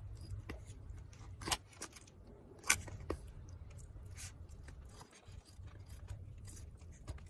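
Kitchen knife cutting slits into raw chicken on a cutting board: a few sharp taps and clicks of the blade against the board, the loudest about 1.5 and 2.7 seconds in, over a low steady hum.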